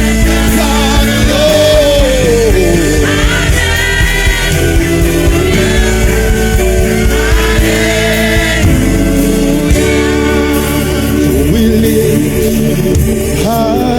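Gospel worship song: sung vocals with held notes and sliding runs over a full band accompaniment with steady bass.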